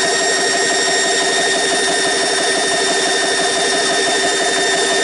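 GX CS3 high-pressure air compressor running steadily with a fast, even pulsing hum, partway through pumping an air-gun tank up toward its 3,000 PSI auto shut-off.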